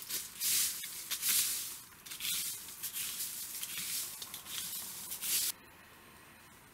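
Dry brush and leaf litter rustling in irregular swells of hiss, cutting off abruptly about five and a half seconds in and leaving a faint steady background.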